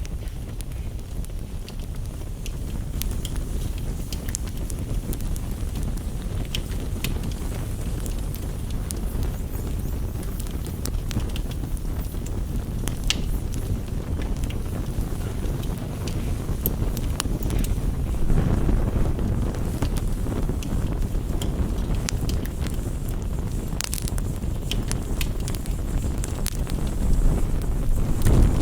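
Wood fire crackling: scattered sharp pops and snaps over a steady low rumble that swells louder about two-thirds of the way through and again near the end.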